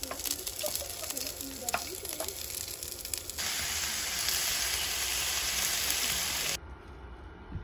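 Sliced onions sizzling and crackling in a frying pan on a portable gas camping stove as a wooden spoon stirs them. About three and a half seconds in, the sizzle turns louder and steadier as chicken fries with the onions, then cuts off suddenly near the end.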